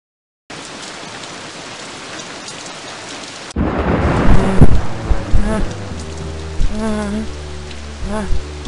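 Steady rain sound that starts about half a second in. About three seconds later a louder rumble like thunder breaks in over a low steady drone. Several short pitched calls follow, each rising and falling.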